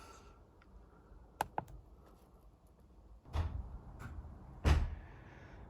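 Two light clicks, then a dull knock and, near the end, a heavier thud: a car door being shut.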